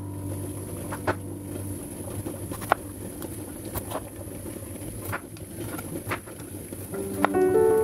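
Kitchen knife cutting bitter melon on a wooden board: about eight irregular sharp knocks of the blade on the wood. Soft background music fades out early on and comes back louder near the end.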